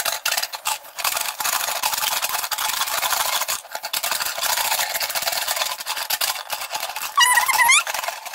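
Crisp fried pasta pieces rattling and scraping against a plate as they are tossed with masala powder, in dense stretches with short breaks. Near the end comes a brief, wavering high-pitched sound.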